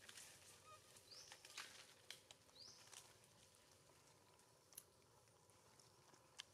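Faint forest ambience with scattered soft ticks and two short, high, rising chirps about a second and a half apart in the first three seconds.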